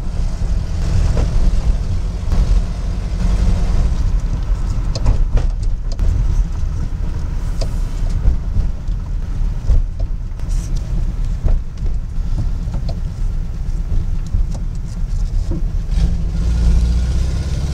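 Volkswagen Syncro driving along, heard from inside the cabin: a steady low engine and road rumble, with scattered light rattles and knocks.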